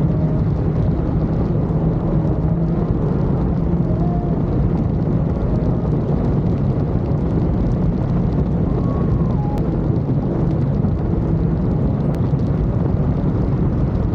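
Jet ski engine and jet pump running steadily at speed, with rushing wind and water noise over a steady low drone.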